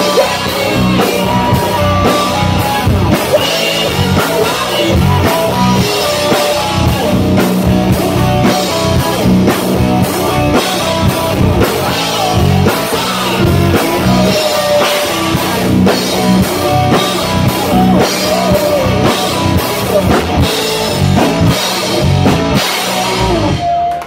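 Live rock band playing loud and fast: electric bass, drum kit keeping a driving beat, electric guitar, and a singer's vocals through the PA.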